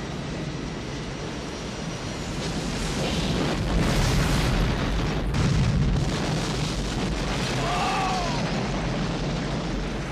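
Film sound effect of a jet airliner exploding in a huge fireball: a long, deep rumbling blast that builds about two seconds in and is loudest in the middle.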